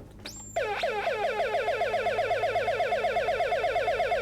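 Electronic siren circuit from a Radio Shack 300-In-One project kit, an astable multivibrator, sounding a fast warble of falling-pitch sweeps, about eight a second. It starts about half a second in, after a brief rising chirp.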